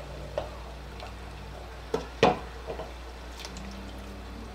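Wooden ladle scooping thick mutton-and-taro curry from a pressure-cooker pot into a bowl: soft liquid splashes and a few light knocks, the loudest just over two seconds in, over a steady low hum.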